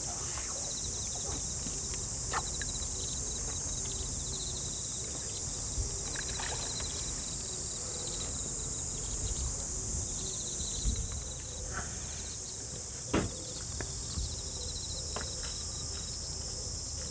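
Steady high-pitched chorus of insects, with a second insect's rapid pulsing trill a little lower, over a low outdoor rumble. A few short knocks stand out, the sharpest about thirteen seconds in.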